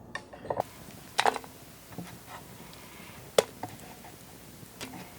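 Orange and lemon slices being put into a pot: a handful of sharp knocks and clicks at irregular intervals, the loudest about a second and again about three and a half seconds in.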